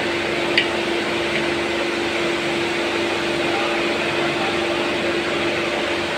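Steady mechanical hum and whir with a constant tone, with a single light click about half a second in as the lift power pack's oil dipstick and plastic filler cap are handled.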